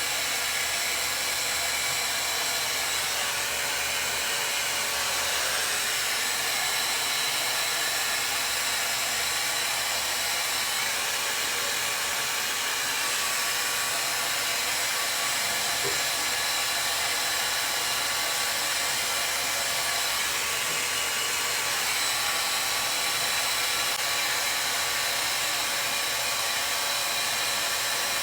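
Compact 5-in-1 hair dryer running steadily as it dries wet hair: an even rush of air with a faint high whine.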